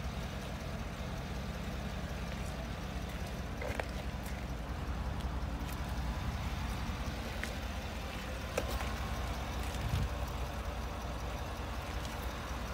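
Steady low rumble with a few faint, scattered clicks.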